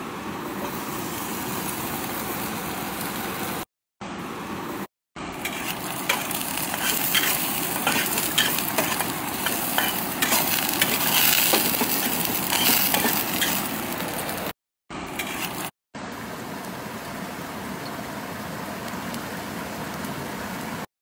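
Cubes of fat sizzling and crackling in a metal frying pan, turned with a slotted spatula. The sound comes in several short clips that cut off abruptly, and the crackling is loudest in the middle.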